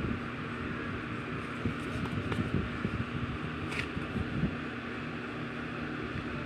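Electric desk fan running with a steady whir and low hum. A few light scrapes and taps of a pencil on paper come through in the middle.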